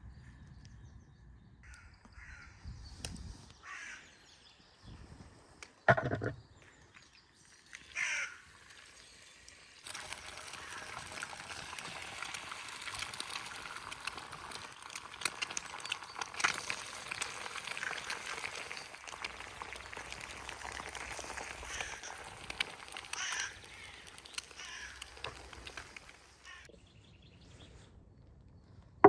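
Eggs frying in a hot pan, a dense sizzle with fine crackles that starts about ten seconds in and dies away near the end. It comes after two short, loud calls or knocks about six and eight seconds in.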